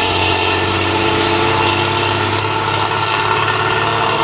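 Old diesel bus engine idling steadily, its exhaust giving the raspy 'ngorok' snoring note typical of older bus chassis such as the Hino AK or Mitsubishi BM.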